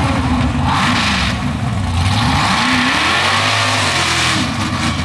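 Slime Time mud truck's engine revving hard as it charges through a mud pit, its pitch rising and falling with the throttle over a steady rush of noise.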